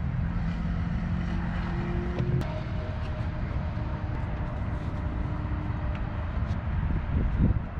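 Steady low rumble of distant engine noise with faint steady hums, swelling briefly louder near the end.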